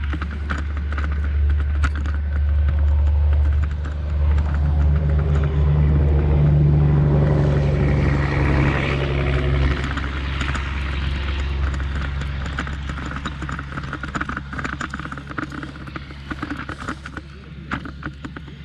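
Deep engine rumble of a heavy vehicle going past, building to its loudest about halfway through and then slowly fading away.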